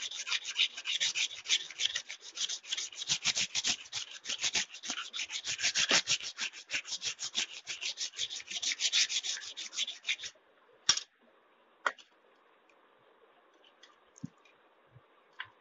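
A wet sharpening stone scraped rapidly back and forth along the blade of a large, rusty pair of tailor's scissors, several strokes a second, grinding off rust and putting an edge on the blade. The scraping stops about ten seconds in, followed by two sharp clicks and a few light knocks.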